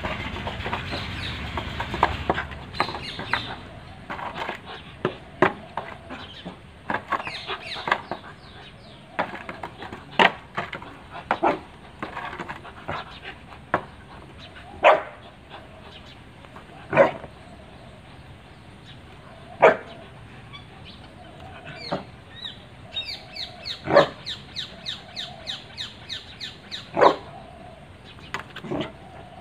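A dog barking in short single barks spaced irregularly, the loudest ones coming a few seconds apart in the second half.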